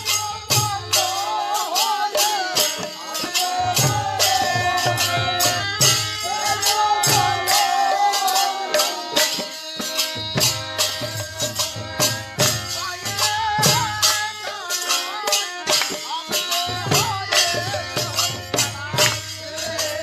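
Bengali village kirtan: voices singing a devotional chant over a fast, steady clash of metal hand cymbals.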